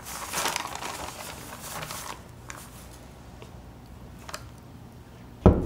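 Soft rustling of paper for about two seconds, then a faint steady hum, and one loud thump near the end as a wooden door is pushed open.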